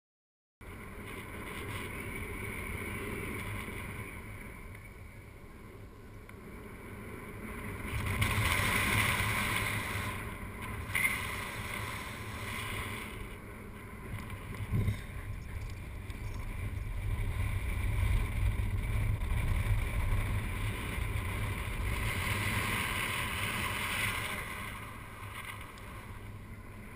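Wind buffeting the microphone of a camera carried by a paraglider in flight: a steady low rumble that starts about half a second in and swells and eases, with a couple of brief knocks.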